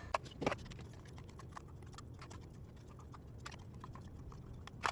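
Foam darts being loaded one by one into a blaster magazine: light, irregular plastic clicks and taps, with a couple of sharper clicks near the start and near the end.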